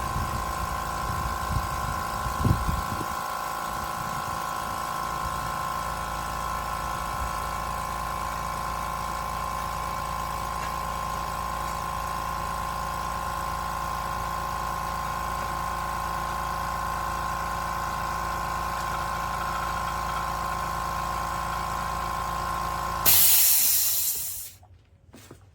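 Limodot 5-gallon oil-free electric air compressor running with a steady hum, with a few low knocks about two seconds in. Near the end the motor stops with a short, loud burst of hissing air.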